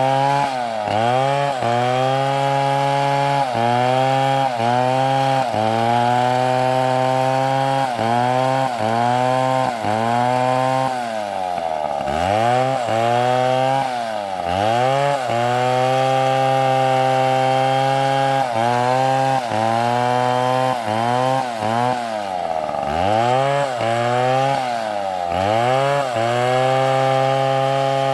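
STIHL two-stroke chainsaw running at high speed while cutting wood. Its pitch sags and recovers about once a second, with two deeper drops and climbs about 12 and 22 seconds in.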